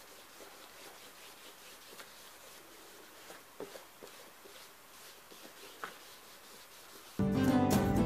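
Faint rustling and rubbing of paper being handled, with a couple of small taps. About seven seconds in, music starts abruptly and much louder.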